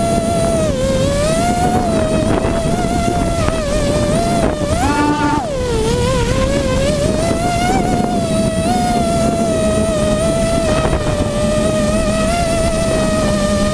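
The six Robbe 2216 brushless motors and propellers of a small hexacopter whine in flight, heard from its onboard camera, with the pitch wavering as the throttle changes. About five seconds in the whine jumps sharply higher for half a second, then drops lower before settling again. Wind rushes over the microphone underneath.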